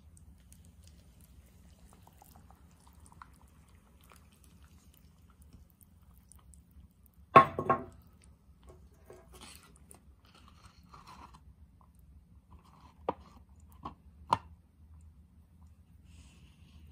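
Handling noises of a paper noodle cup and kettle on a table against a faint low hum: a loud double knock about seven seconds in, then three lighter clicks a few seconds later.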